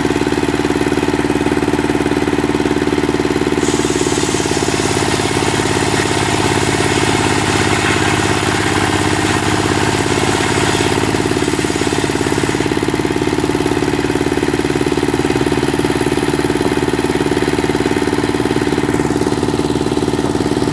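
Dongfeng single-cylinder diesel engine running steadily at a constant speed, with a fast, even firing beat.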